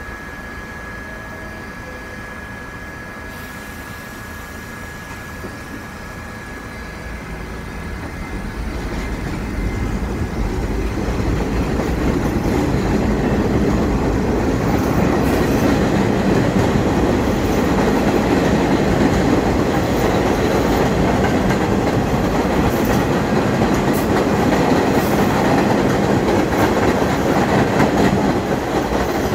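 New York City subway train running on the tracks, the wheel and motor noise growing louder from about seven seconds in and then holding loud and steady.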